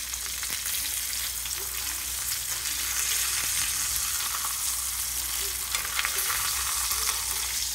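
Ribeye steak searing in hot oil in a cast iron skillet: a steady sizzle as the first side finishes browning, nearly ready to flip.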